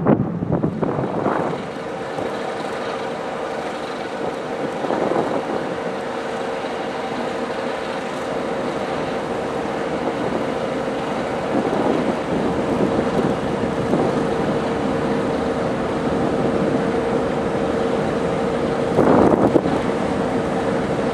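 Passenger train hauled by an electric locomotive rolling across a steel truss railway bridge: a steady rumble with a constant hum, swelling louder briefly a few times. Wind on the microphone.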